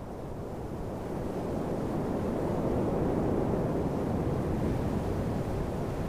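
Steady rushing noise with no distinct events, fading in over the first couple of seconds and then holding even.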